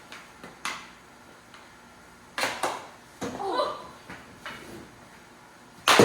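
Sharp clacks and knocks from a knee-hockey game: mini hockey sticks striking the ball and the ball hitting hard surfaces, about half a dozen separate hits, with the loudest bang near the end.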